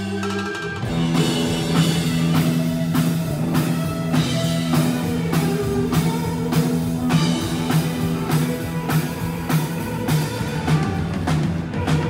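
Live rock band playing: a drum kit keeps a steady beat over bass and electric guitars.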